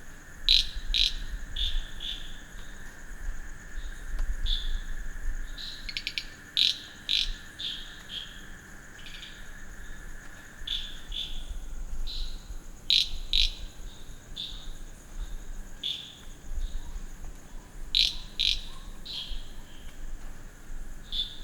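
Night chorus of crickets and other insects trilling steadily, with short high chirping calls and clicks repeating every second or so. A lower insect drone stops about eleven seconds in.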